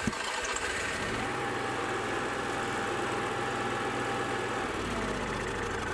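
Onan RV generator's gasoline engine running steadily just after being started from its start button. A faint steady whine sits over the engine from about one to four and a half seconds in.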